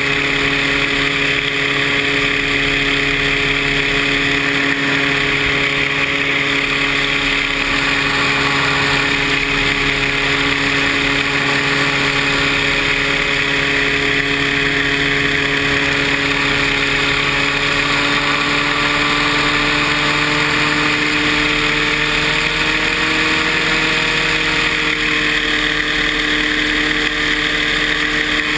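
Paramotor engine and propeller running steadily at a loud, constant throttle, with a rushing noise over it, the engine note shifting slightly in pitch in the last several seconds.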